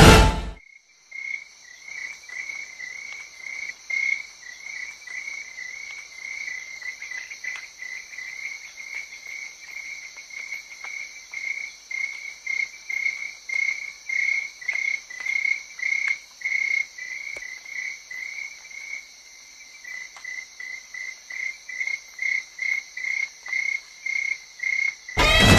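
Crickets chirping: a long run of short high chirps, about two a second, with a brief break about three-quarters of the way through and quicker chirps near the end.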